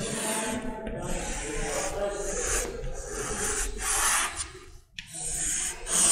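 Chalk scraping across a blackboard in a series of long strokes as curved lines are drawn, with a brief break about five seconds in.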